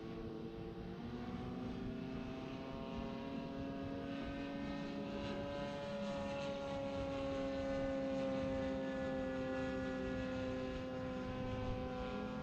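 Radio-controlled Super Decathlon model airplane in flight, its motor and propeller giving a steady droning tone. The pitch and loudness rise slightly about a second in and again toward the middle, then ease off a little.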